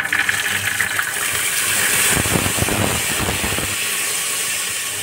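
Soaked black chickpeas dropped into hot mustard oil in a pressure cooker, sizzling loudly the moment they land, as the water on them flashes to steam. A rougher burst of crackle comes around the middle, then it settles into a steady hiss.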